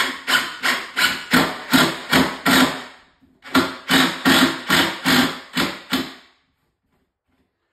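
Cordless drill with a Torx bit driving a 2 1/4-inch screw through one cabinet face frame into the next. It runs in short repeated pulses, about two or three a second, with a brief pause about 3 seconds in, and stops about 6 seconds in as the screw seats.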